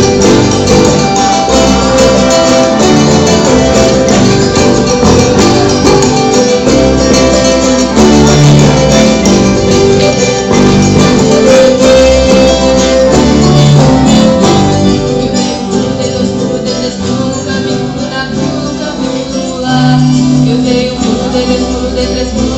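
Acoustic music led by guitar, with held melody notes over a steady accompaniment. It becomes softer about two-thirds of the way through.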